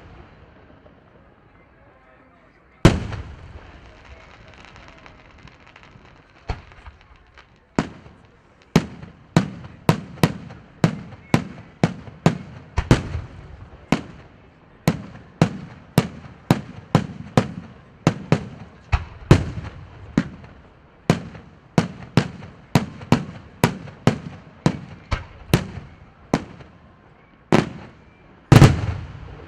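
Fireworks display: a single loud aerial shell burst about three seconds in, then a few seconds of fainter crackle. After that comes a rapid, steady run of sharp shell bursts, nearly two a second. A short gap follows, then two heavy bangs near the end.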